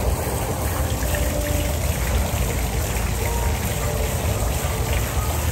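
Steady trickling and splashing of water from a garden pond fountain, with soft background music faintly audible.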